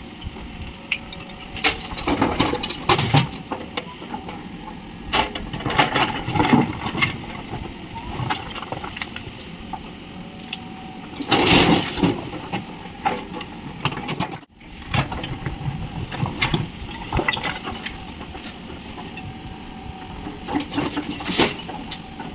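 Backhoe loader's diesel engine running steadily, with repeated bursts of clattering and crashing as the loader works and material is dumped into a tractor trolley. There are about five such bursts, the loudest around the middle.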